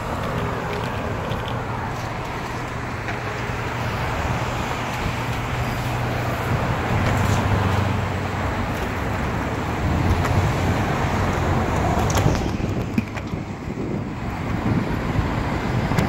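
Riding a Bird electric kick scooter along a street: steady rushing road and air noise with a low hum.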